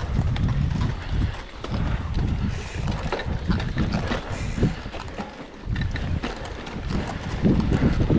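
Wind buffeting the microphone of a camera riding on a mountain bike, over the rolling of the tyres on dirt and dry leaves, with frequent rattles and knocks as the bike goes over bumps on forest singletrack. The rumble drops off briefly about five seconds in.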